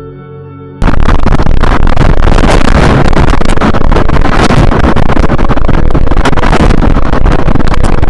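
Soft ambient music with held tones, cut off abruptly about a second in by loud, constant wind noise buffeting the microphone during a tornado.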